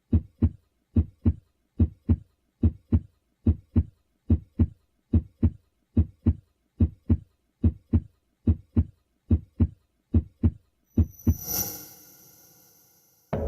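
Heartbeat sound effect: a steady lub-dub of paired low thumps at about seventy beats a minute. About eleven seconds in, the beats give way to a swelling whoosh with a ringing high tone that fades away.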